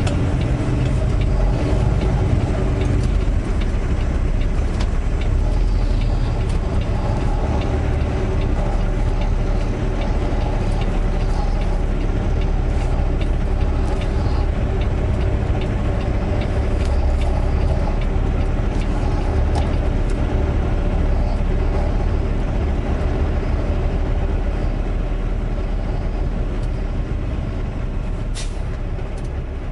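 Semi truck's diesel engine running steadily, its pitch holding level throughout; it grows slightly quieter near the end.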